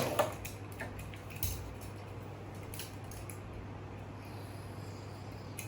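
A few light plastic clicks and knocks from toy cars being handled in a toy parking set, spaced out over a steady low hum.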